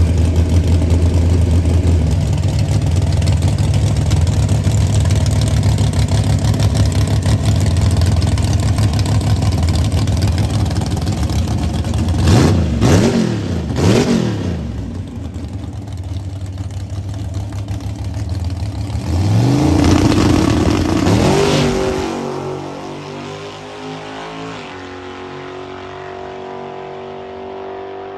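Drag-racing pickup truck's V8-style engine: running loud at the tail of a burnout, then idling, with two sharp revs about twelve and fourteen seconds in as it stages. About nineteen seconds in it launches with a rising pitch, then the sound fades as the truck runs away down the strip.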